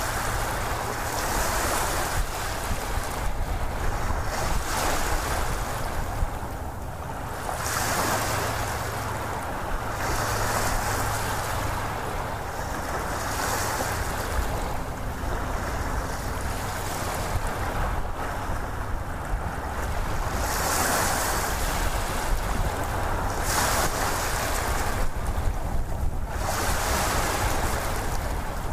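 Ocean waves washing in and out: a steady rush of surf that swells and ebbs every two to three seconds.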